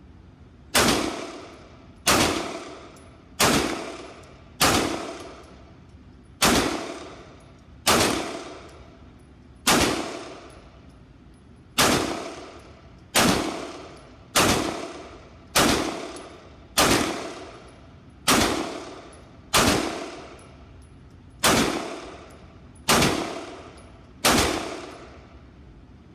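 Springfield Armory Prodigy 9mm pistol firing seventeen single shots in slow, steady succession, one every second and a half or so. Each report rings on in the reverberant indoor range.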